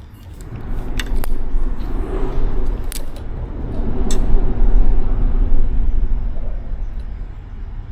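Traffic crossing the bridge overhead: a low rumble that swells and then fades away, with a few sharp clacks in its first few seconds.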